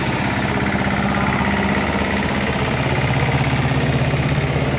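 Train locomotive engine running steadily with a fast, even throb; its low hum drops in pitch about halfway through.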